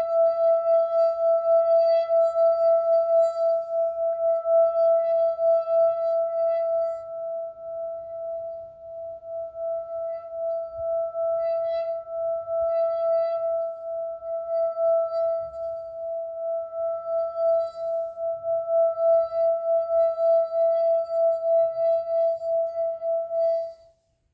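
A sustained ringing tone, steady in pitch with a pulsing wobble and a fainter overtone an octave above, with faint light chatter over it; it stops abruptly near the end.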